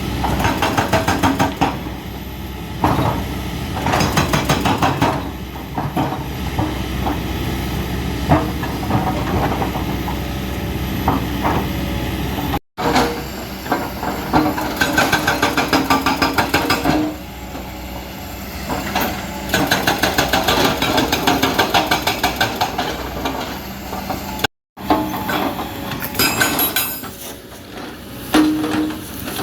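Diesel engine of heavy earthmoving machinery working under load, with runs of rapid metallic clatter and knocking from the machine. The sound drops out abruptly twice.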